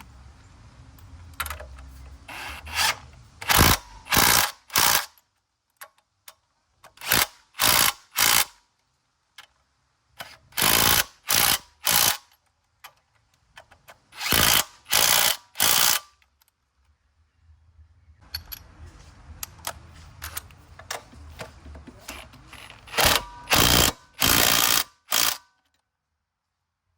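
Hand ratchet wrench clicking through short swings, in groups of two to four strokes with pauses between, driving in the engine mount bolts.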